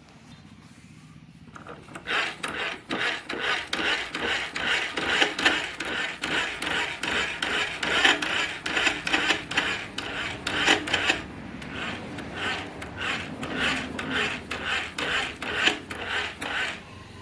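Rhythmic rasping, scraping strokes, about three or four a second, in two runs with a short break partway through.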